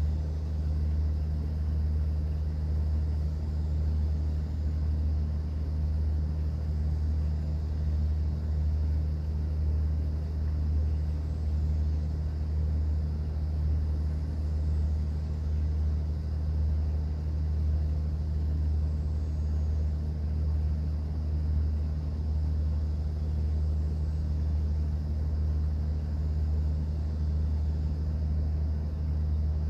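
A cruise boat's engine running with a steady low drone and a fainter hum a little higher in pitch, heard on board.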